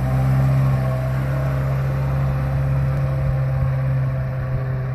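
Lifted pickup truck's engine running steadily at low speed as the truck crawls along a wooden plank bridge.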